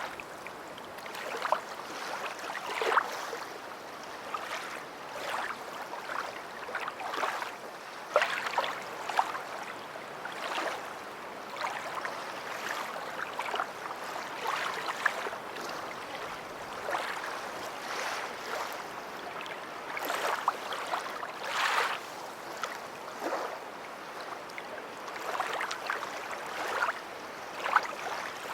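Small waves lapping and splashing at the shore in a steady wash of water, with irregular sharper splashes every second or so and little deep rumble of heavy surf.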